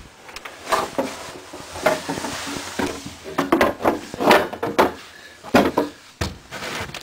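A run of irregular knocks, bumps and scrapes from snow shovels and a back door being handled, the clatter coming in clusters and loudest around the middle.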